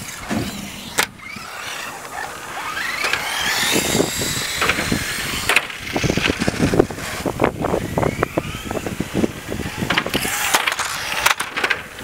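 Radio-controlled buggy driving on concrete: its motor whines up in pitch several times as it speeds up, with a hiss of tyres and a run of sharp knocks and clatter as it hits the surface.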